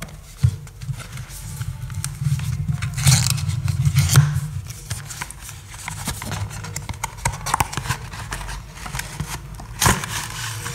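Cardboard packaging of a screen protector being opened by hand: card sliding, scraping and rustling, with a sharp click near the end.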